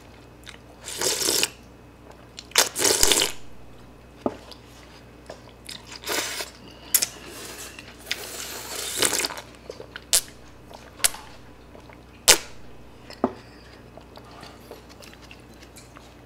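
Slurping and chewing of rice noodles and broth from a bowl of Vietnamese pho: short hissing slurps about a second in, around three seconds and around nine seconds, with a few sharp clicks scattered between them.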